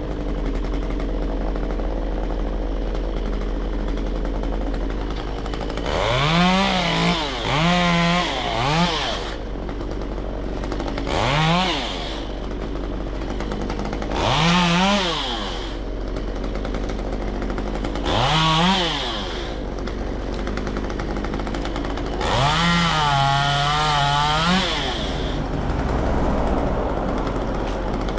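Stihl MS193T top-handle two-stroke chainsaw idling, then revved up to full throttle in seven short bursts, the longest about two to three seconds near the end, dropping back to idle between them. A steady low drone runs underneath.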